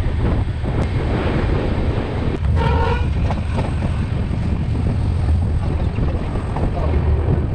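Passenger train running, a steady low rumble with wind buffeting the microphone, and a short horn blast about two and a half seconds in.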